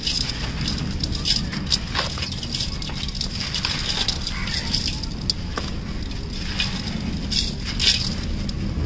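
Dry sandy cement lumps crushed by hand in a steel pot, with grit pouring through the fingers onto the pile: a continuous gritty crumbling with many small crackles.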